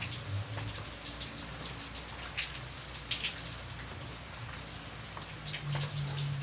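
Light rain falling steadily, with single drops striking close by at irregular moments.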